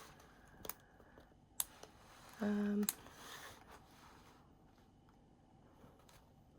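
A mostly quiet room with a few faint clicks and taps of handling, and a short hummed voice sound about two and a half seconds in.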